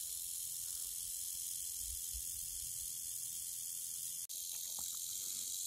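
Timber rattlesnake rattling: a steady, high buzz from its raised tail, the snake's defensive warning. The sound drops out for an instant about four seconds in.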